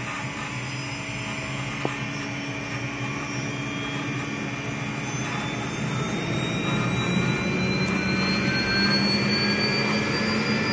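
Eurocopter EC120 Colibri's turboshaft engine spooling up on the ground, heard from inside the cabin: a steady turbine whine whose tones slowly rise in pitch as the sound grows louder.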